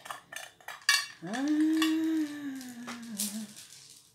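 Beads and metal jewelry clicking together as they are handled, then a woman's voice holding one long wordless note that rises at first, holds, and slides slowly lower before breaking off.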